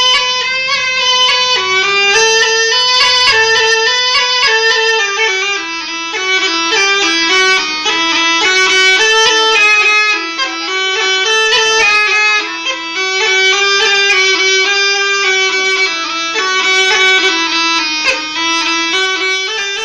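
Been (pungi), the Indian snake charmer's reed pipe, playing a winding melody of short stepped notes with a nasal, reedy tone.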